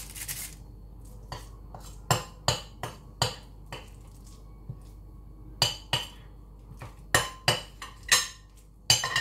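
A metal scoop knocking and scraping against a glass mixing bowl while meatball mixture is scooped out, giving sharp clinks in quick clusters of two to four.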